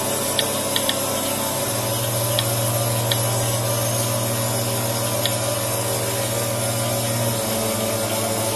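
Two-stage rotary vane vacuum pump running steadily. A low hum grows louder about two seconds in and eases back near the end, and a few faint sharp ticks sound.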